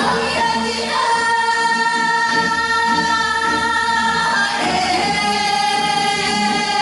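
Korean Gyeonggi folk song (Gyeonggi minyo) sung by women's voices together, in long held notes that move to a new pitch about a second in and again near the middle.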